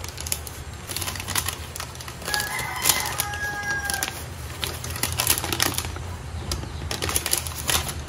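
Paper food wrapper rustling and crinkling as it is handled and set on an upturned stainless steel mesh colander over a pot, over a steady low hum. A drawn-out held note sounds in the background about two and a half seconds in.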